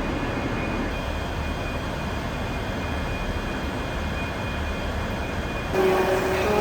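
A diesel passenger train's engine running steadily, a low rumble with a thin steady whine. Near the end a voice starts over it.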